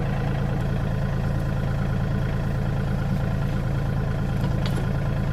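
LS MT232 compact tractor's diesel engine idling steadily, with a couple of faint clicks about four and a half seconds in.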